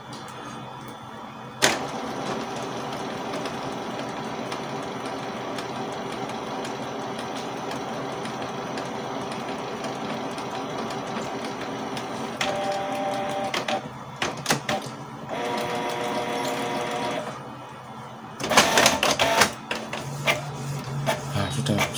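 Canon MP287 inkjet printer printing a test page. A click about two seconds in, then a steady mechanical whir from its feed and print-head motors that changes pitch with clicks past the middle. Louder, irregular clattering comes in the last few seconds.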